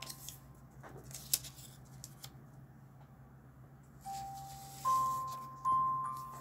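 Origami paper being handled and creased, with faint rustles and a few light taps, one sharper than the rest, over a low steady hum. About four seconds in, chiming background music of single bell-like notes comes back in.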